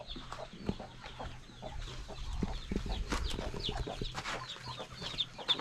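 Chickens clucking, with a steady stream of short, high peeps from the young birds.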